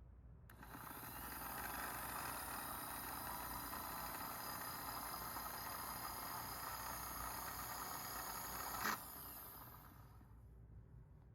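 Unimat SL1000 mini lathe's electric motor starting up and running at a steady speed with a high whine. Near the end there is a sharp click as it is switched off, and it then winds down to a stop.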